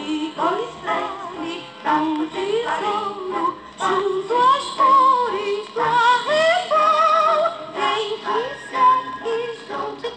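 A song from a 1963 children's record: a singing voice with vibrato over instrumental accompaniment.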